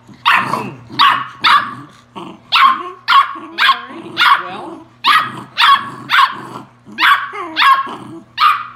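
A nine-week-old beagle puppy barking over and over in high-pitched yaps, about two a second in short runs with brief pauses.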